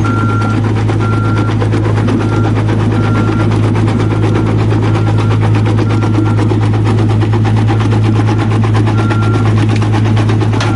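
Small mobile jaw crusher and its belt conveyor running: a steady deep machine hum under a dense rattle of crushed gravel. A short high beep repeats about once a second, weaker in the middle and stronger again near the end.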